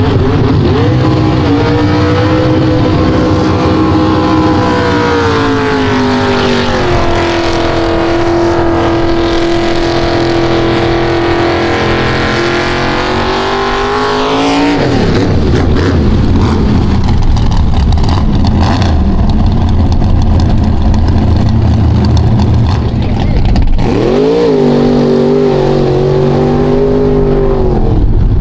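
Mega truck engine running at full throttle through a mud bog, its pitch held high and wavering as the tyres churn, then dropping sharply about halfway through. Near the end another truck's engine revs up and holds high as it plows into the mud.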